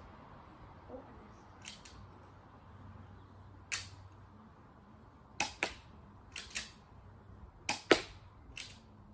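Airsoft pistol being fired, with BBs striking the target: about nine sharp cracks, spaced irregularly, several coming in quick pairs. The loudest falls near the end.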